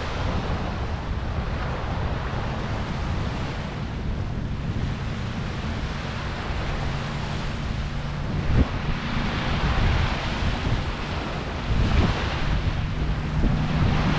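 Surf washing on the shore, with wind rumbling on the microphone; the wash swells a couple of times, with a couple of brief thuds past the middle.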